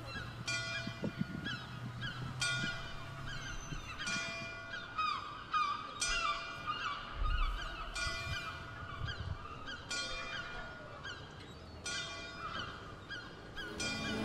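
Geese honking, many calls overlapping, over a pitched sound that starts afresh about every two seconds.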